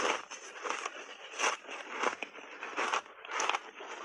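Refrozen shaved ice coated in matcha powder being chewed close to a clip-on microphone: crunching over and over, about two to three crunches a second.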